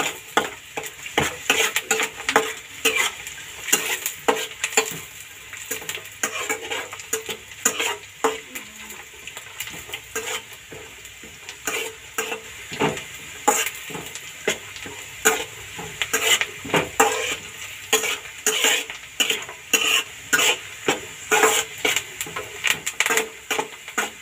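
A spatula stirring peanuts, chopped onion and curry leaves frying in oil in a non-stick kadai: repeated irregular scrapes and taps against the pan, one or two a second, over a steady sizzle.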